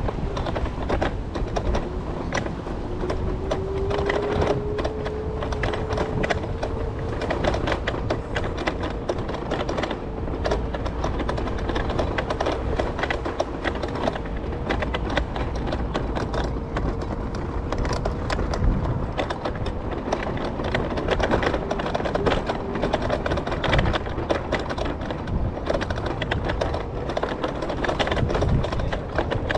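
Marti rental electric scooter in motion: the motor gives a steady whine that rises slightly in pitch a few seconds in and then holds, over a dense, fast rattle from the scooter clattering over the riding surface.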